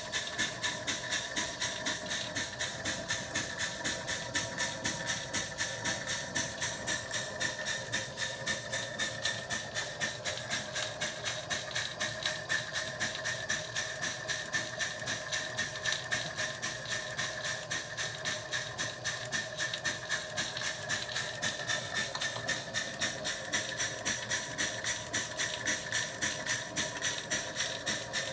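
Butane-fired miniature live-steam Case traction engine (Maxitrak) working under the load of a belt-driven Baker fan: its exhaust barks in a fast, even rhythm of beats over a steady hiss of steam.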